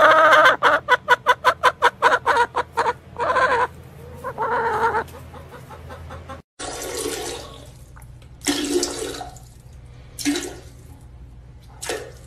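Hen clucking: a fast run of short clucks, about four or five a second, for the first few seconds, then one longer call. After that come a few separate, noisier calls with gaps between them.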